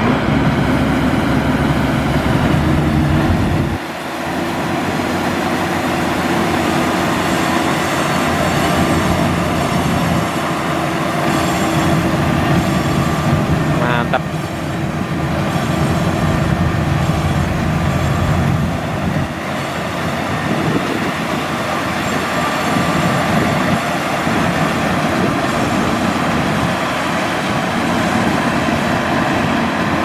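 Maxxi Bimo 102 combine harvester running while harvesting rice: a loud, steady drone of engine and threshing machinery with several held tones. The level dips briefly about four seconds in, and there is a short sharp click about halfway through.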